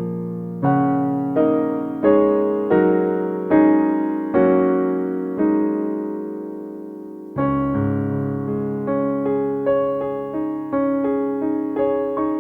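Background piano music: gentle chords struck about once a second, each fading away, with one chord left to ring for about two seconds midway.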